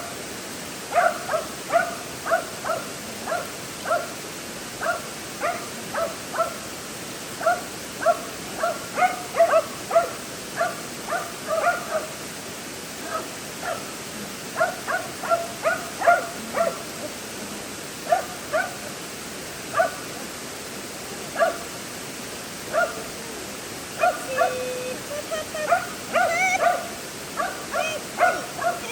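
Dog barking repeatedly, short sharp barks one or two a second with brief pauses, and a short whine near the end, over a steady rush of creek water.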